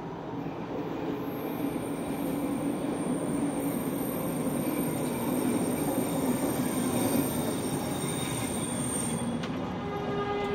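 A SkyTrain train running along the track with a steady rumble. A thin, high whine sits over it and cuts off about nine seconds in.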